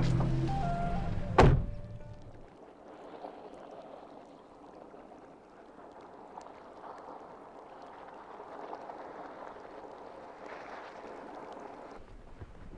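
A vehicle door slams shut with a single loud thud about a second and a half in, over a low rumble; after that only faint ambience remains.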